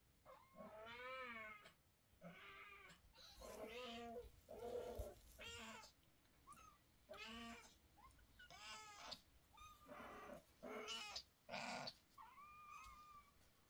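Mother cat meowing again and again, about a dozen short calls that rise and fall in pitch, scolding her kittens; near the end comes a thinner, higher call.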